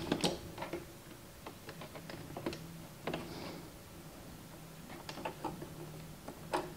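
Scattered light clicks and taps from hands working yarn into the plastic needles of an Addi Express knitting machine.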